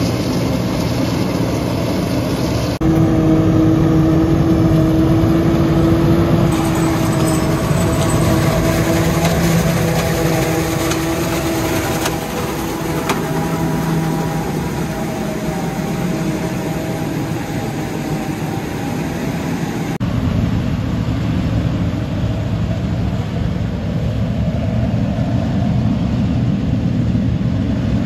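Claas Jaguar 970 self-propelled forage harvester running under load while chopping standing corn for silage, a heavy continuous machine noise. A steady whine rides over it through the first half, and the sound shifts abruptly a few seconds in, again after about six seconds, and after about twenty seconds.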